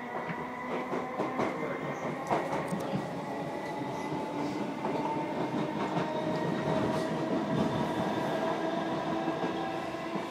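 Electric passenger train heard from inside the carriage as it pulls out and gathers speed. The motor whine rises slowly in pitch over running rumble from the wheels and rails, with a few sharp clicks over the track in the first seconds.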